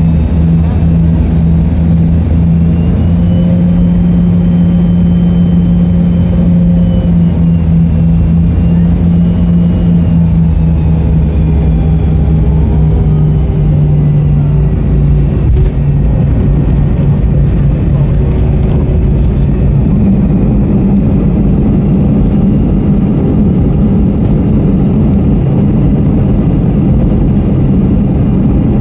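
Cabin sound of a McDonnell Douglas MD-82's tail-mounted Pratt & Whitney JT8D turbofans after landing, heard from a rear window seat. Their drone and whine wind down slowly over the first half as the jet rolls along the ground, over a steady low rumble.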